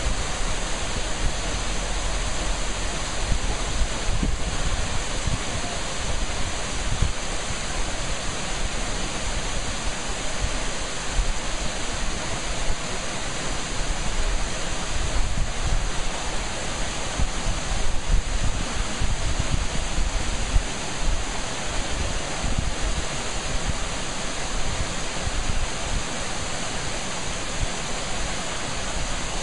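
Steady rushing noise of Horsetail Falls, a tall waterfall plunging into its pool, with wind buffeting the microphone as a fluctuating low rumble.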